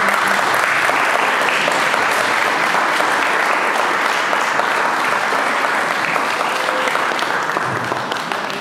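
Room full of guests applauding after a toast: dense, steady clapping that tapers off near the end.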